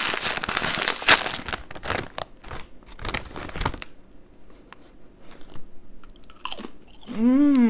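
Crinkly chip bag rustling loudly as a hand digs into it, dying away after a few seconds, then crunching as a chip is bitten and chewed. A short hummed 'mmm' rises and falls near the end.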